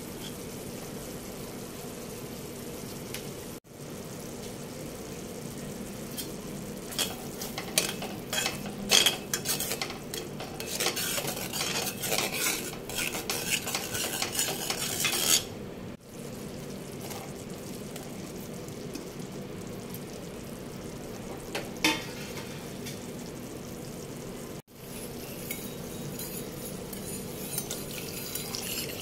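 Spatula stirring and scraping through a thick sauce simmering and sizzling in a steel wok, with clinks of the utensil against the pan; the scraping is busiest in the middle stretch, and one sharp clink comes later.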